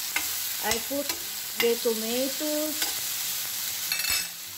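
Chopped tomatoes, garlic and onion sizzling in oil in a stainless steel frying pan while a metal spoon stirs them. The spoon clinks several times against the pan and gives a few drawn-out scrapes in the middle.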